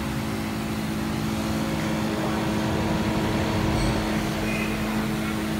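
Plamate 20-litre electric backpack sprayer running: its electric pump gives a steady hum while the twin-nozzle lance hisses out a fine mist.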